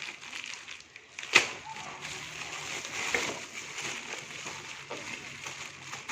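Parcel packaging being opened and handled: rustling and crinkling with scattered light clicks, and one sharp click about a second and a half in.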